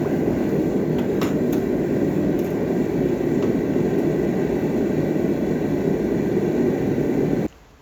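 Forge burner running with a steady, even rush of noise, then stopping abruptly near the end.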